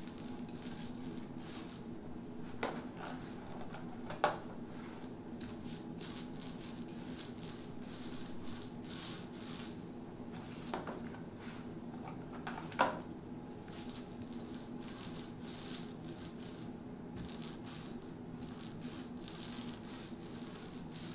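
Paint roller spreading epoxy over a plywood panel: repeated back-and-forth rolling strokes with a soft swishing hiss, over a steady low hum. Two sharp clicks stand out, about four and thirteen seconds in.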